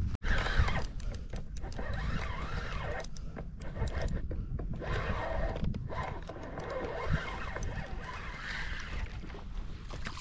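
A steady low rumble with scattered clicks and rustles as a fishing rod and line are handled close to a body-worn camera.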